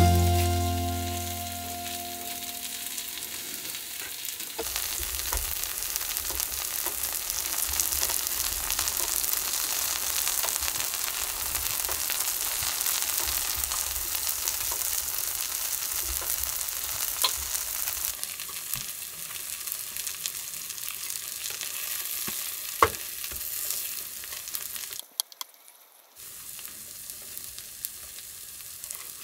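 Takoyaki balls sizzling in the oiled wells of an electric takoyaki plate, a steady frying hiss with a few sharp clicks. The sizzle drops out briefly near the end and comes back quieter.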